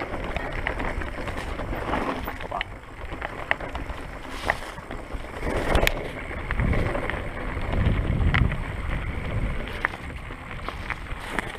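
Mountain bike rolling down a trail of loose stones, with wind rumbling on the camera microphone and scattered sharp clicks and knocks from the bike and the stones.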